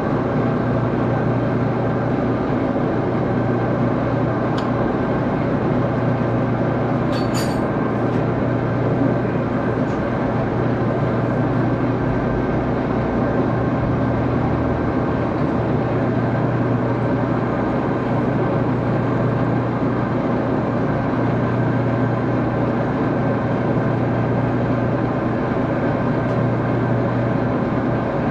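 Axelson lathe running steadily with a constant hum while a knurl is rolled into a small set screw, with a couple of faint high ticks in the first several seconds.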